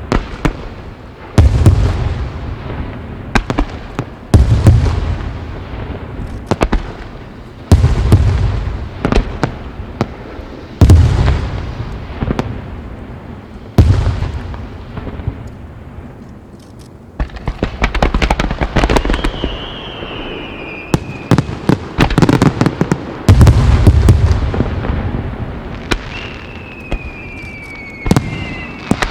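Wide starmine fireworks display: shell bursts booming every second or two, with sharp crackling between them. Two falling whistles come in the second half.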